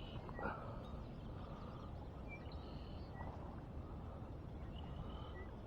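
Outdoor riverside ambience: a steady low rumble with a few short, faint bird chirps scattered through it.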